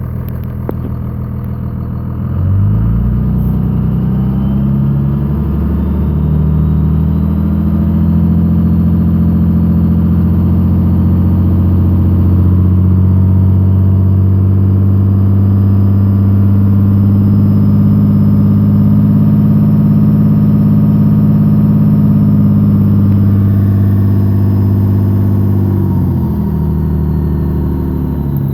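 2002 Cummins 24-valve 5.9-litre inline-six turbo-diesel idling, then revved up about two and a half seconds in and held at around 2,000 RPM, dropping back to idle near the end. A thumping is slightly there under the running; the owner fears a rod bearing or wrist pin, though forum suggestions include injector knock or a normal sound.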